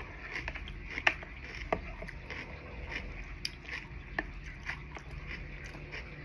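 A person eating close to the microphone: chewing with irregular wet mouth clicks and smacks. Two sharper clicks stand out, about a second in and again just under two seconds in.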